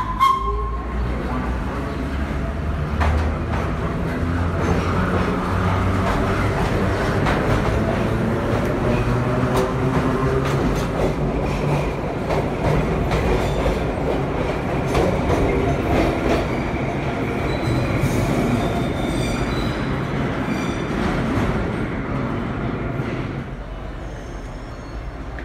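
Vintage IRT Lo-V subway train running past the platform: deep rumble with a steady motor hum and wheels clicking over rail joints. A horn sounds briefly at the start, and high wheel squeal comes in around two-thirds of the way through.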